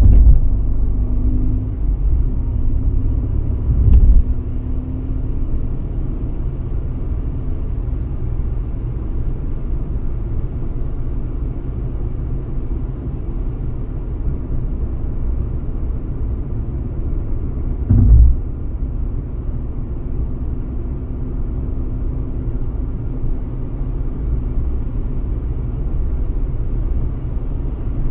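A car driving on a motorway: a steady low road and tyre rumble with a faint hum. It is broken twice by a brief, loud thump, about four seconds in and again near eighteen seconds.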